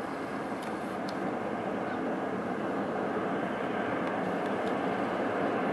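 Diesel freight locomotives running as they pull a train past, a steady engine rumble growing gradually louder as they approach, with a few faint clicks.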